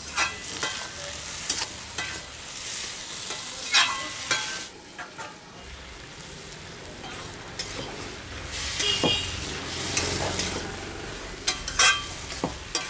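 Mixed vegetables frying in mustard oil in a metal kadai over a wood fire, stirred with a steel spatula that scrapes and knocks against the pan. There are scattered sharper knocks, a couple louder around four seconds in and near the end.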